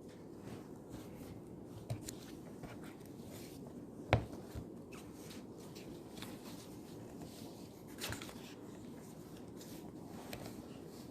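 Quiet study-room ambience: a steady low hum with faint scratching and rustling of writing on paper. A single sharp knock about four seconds in and a softer one near eight seconds stand out.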